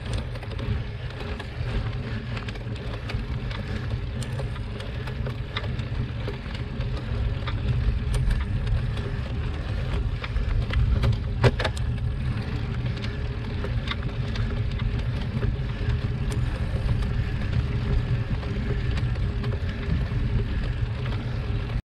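Ride noise from a camera mounted on a road bicycle climbing a paved road: a steady low rumble with scattered clicks and rattles. It cuts off suddenly near the end.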